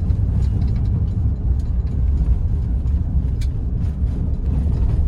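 Steady low rumble of a vehicle driving on a gravel dirt road, heard from inside the cab. Scattered faint ticks and rattles sound over it.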